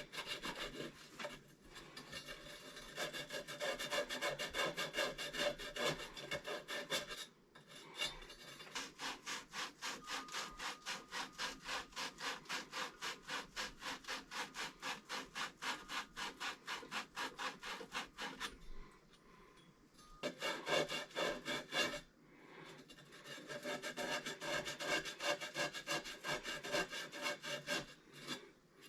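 Copper water pipe being scrubbed clean by hand with an abrasive, in fast back-and-forth rubbing strokes of about three a second, the pipe end being prepared for soldering. The strokes stop briefly three times.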